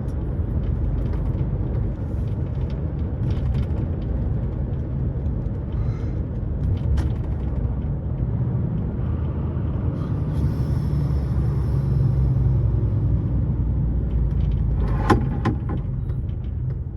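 Lorry cab on the move: a steady low rumble of the truck's engine and road noise, with scattered light clicks and rattles that the driver puts down to the cab blind knocking about. There is a sharper knock about fifteen seconds in and a soft hiss for a few seconds before it.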